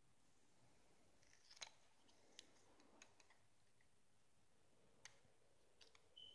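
Faint, scattered clicks and small taps of hard fingerboard parts being handled during setup, about eight in all. A brief high squeak comes near the end.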